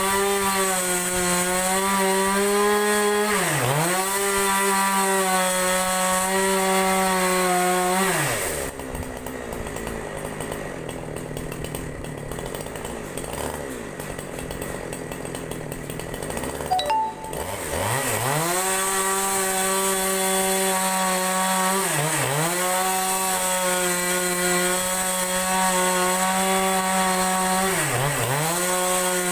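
Two-stroke chainsaw running at full throttle, its engine speed dipping and recovering every few seconds. About eight seconds in it drops to idle for about eight seconds, then revs back up to full speed.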